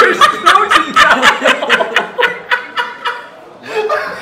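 A group of men laughing loudly in quick, repeated bursts; the laughter dies down briefly about three seconds in, then starts up again.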